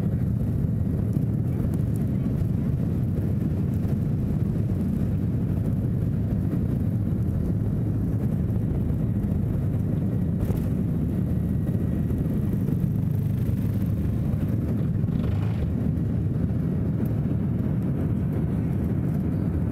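Jet airliner at takeoff power, heard from inside the cabin over the wing: a steady, deep rumble of engines and runway through the takeoff roll and lift-off.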